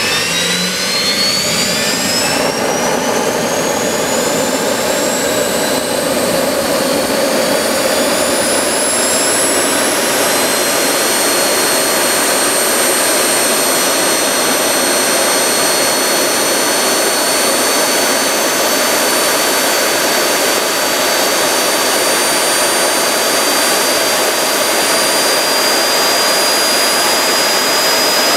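Homemade 200-pound-thrust turbojet, its exducer tip clearance opened up to raise mass flow, running on a test stand. A steady roar with a high turbine whine that climbs in pitch over the first ten seconds or so as it spools up, then holds steady.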